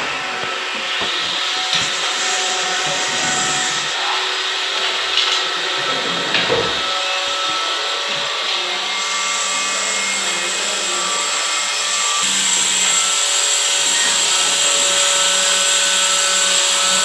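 Hilti dust extractor (vacuum) running steadily with a hissing suction noise, with a few knocks about five and six and a half seconds in as the hose and fittings are handled.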